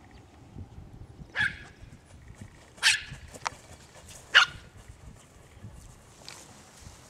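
Small dog barking three times, short sharp barks about a second and a half apart.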